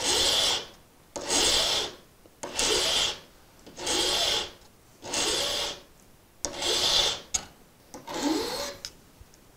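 Flat hand file rasping across the underside of a big-game fishing hook in seven even strokes about a second apart, each a rolling stroke that thins the hook's profile past the barb.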